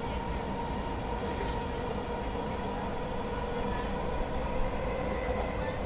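Toronto subway train running between stations, heard from inside the car: a steady rumble of wheels on track with a steady hum from the motors, and a few light clicks near the end.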